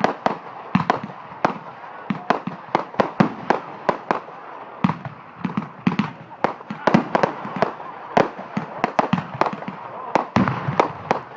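Fireworks going off in a rapid, irregular barrage of sharp cracks and bangs, several a second.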